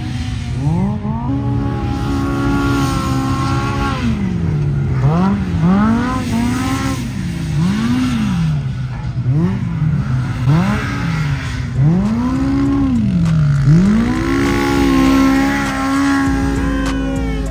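Side-by-side UTV engine revving hard as it climbs a sand dune. The pitch swings up and down about a dozen times as the throttle is worked, with a few longer stretches held at high revs while the tyres throw sand.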